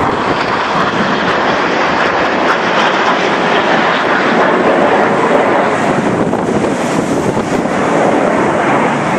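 BAE Hawk T1 jets of an aerobatic team flying low overhead in formation, their engines giving a loud, steady jet roar.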